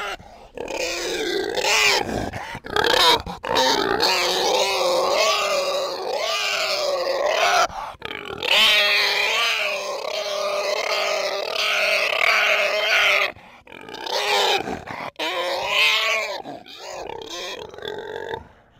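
Pig squealing: a long, loud run of pitched squeals that bend up and down, with short breaks about 13 and 15 seconds in.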